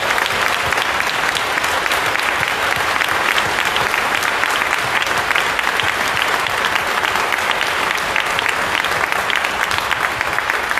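A crowd applauding steadily, many hands clapping without a pause.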